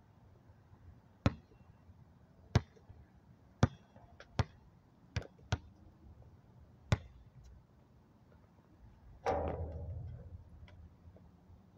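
Basketball bouncing on an outdoor court, seven sharp single bounces spaced about a second apart, two coming closer together mid-way. About nine seconds in comes a louder impact that rings off over about a second.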